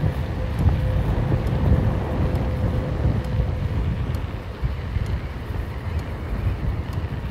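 Wind buffeting the microphone as a low, steady rumble while travelling along an open road. A faint steady hum runs underneath and fades out about halfway through.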